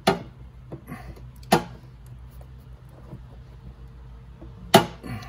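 Sharp metallic knocks of hand tools on the steel frame of a kids' electric quad while a suspension bolt is being loosened: three separate knocks, one at the start, one about a second and a half in, and the loudest near the end, with faint ticks between.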